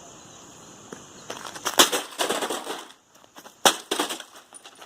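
A few sharp knocks and clicks: a cluster in the middle, then one loud knock about two seconds later.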